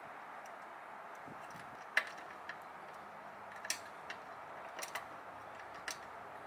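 A few light metallic clicks and ticks, about six spread over several seconds and the loudest about two seconds in, over a steady faint hiss: hands handling a metal motorcycle tail rack and its bolts.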